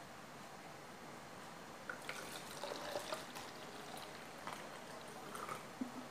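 Water poured from a plastic bottle into a plastic cup: a faint trickle and splash that starts about two seconds in and tails off near the end.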